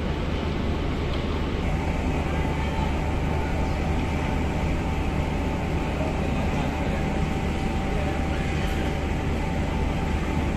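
Steady low rumble of vehicle traffic and idling engines, with a faint steady whine that joins about two seconds in.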